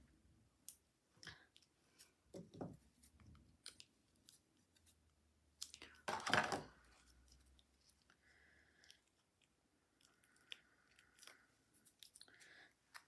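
Quiet handling of small cardstock pieces and foam tape: light clicks and soft paper rustles as tape squares are pressed on, with one louder rustle about six seconds in.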